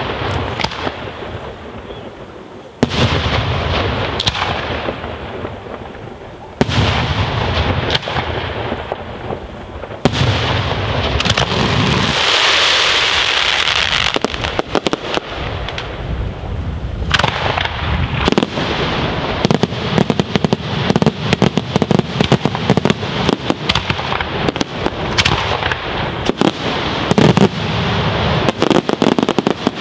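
Daytime aerial fireworks: shells bursting with loud bangs every few seconds, each followed by a rolling echo, then a stretch of dense hissing and crackling, and from about two-thirds of the way in a rapid, continuous barrage of sharp cracking reports.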